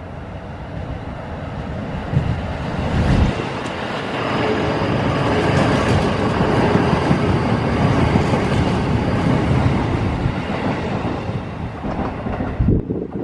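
Electric train running along the track past a station platform, the rumble and rail noise building to a peak midway and then easing off, with an abrupt change near the end.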